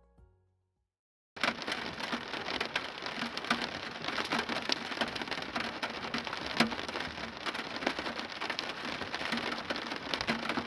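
Steady, dense patter of falling water drops, a crackle of many small hits. It starts suddenly about a second in, after a moment of silence.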